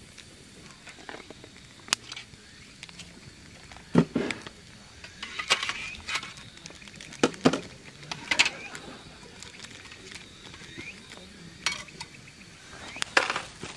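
Scattered sharp knocks and clinks, a handful of them louder and a second or more apart.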